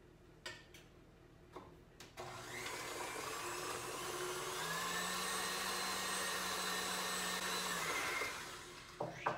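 Stand mixer switched on about two seconds in, its motor whine rising as it speeds up, then running steadily with its wire whisk beating butter and egg before winding down and stopping near the end. A few light clicks come before it starts.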